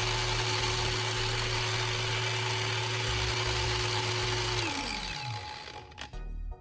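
Angle grinder running steadily with a fixed whine while P80 sandpaper grinds against the spinning DVD, stripping its coating. About four and a half seconds in the grinder is switched off and its whine falls in pitch as it winds down.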